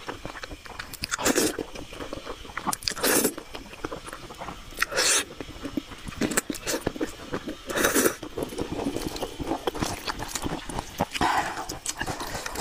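Close-up eating sounds: loud slurps of noodles recurring every couple of seconds, with wet chewing and the crunch of bites into a slice of yellow pickled radish.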